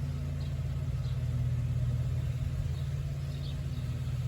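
Chevrolet Camaro engine idling steadily with a low rumble, just after it has been jump-started from another car.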